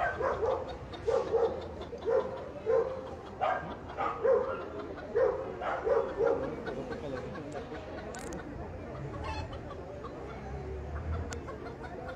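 A small dog barking over and over, about one bark every two-thirds of a second, stopping about seven seconds in.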